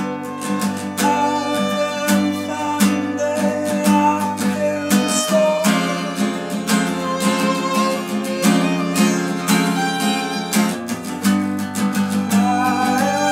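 Acoustic guitar strummed in a steady rhythm, with a violin playing the melody over it.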